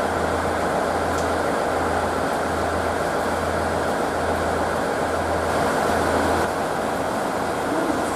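An electric commuter train standing at the platform with its equipment running: a low hum pulsing a little faster than once a second, over a steady hiss of noise. The pulsing stops about six and a half seconds in.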